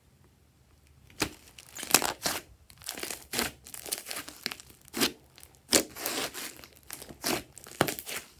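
Hands stretching and squeezing a thick slime mixed with clay and makeup and studded with small beads, giving irregular crackles and pops. The sounds start about a second in.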